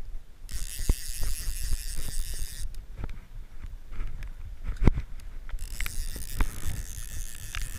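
Fly reel's clicker buzzing as line is pulled off it, in two runs: one of about two seconds near the start and another starting about two seconds before the end. Low knocks and rumble from handling and wind on the chest-mounted camera run underneath.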